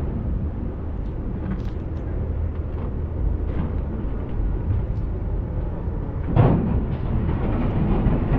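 Passenger ferry's engine running, a steady low rumble, with a brief louder knock about six seconds in.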